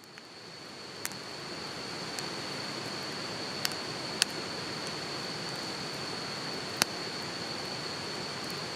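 A steady rushing hiss that swells in over the first two seconds, with four sharp pops spread through it and a steady high-pitched insect trill.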